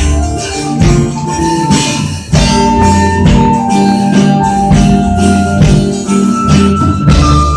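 Live band playing an instrumental passage: a held melodic lead line over bass and drums, with a jingling tambourine.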